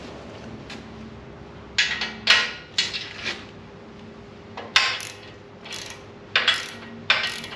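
Bolt hardware being fitted and tightened: short metallic clicks and clinks of bolts, washers, nuts and a wrench, in small runs about half a second apart.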